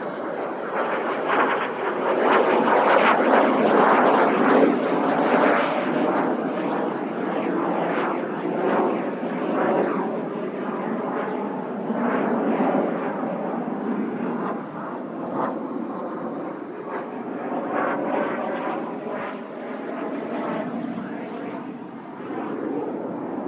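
Kawasaki T-4 jet trainers flying past, their turbofan noise swelling to its loudest a few seconds in, then easing and wavering.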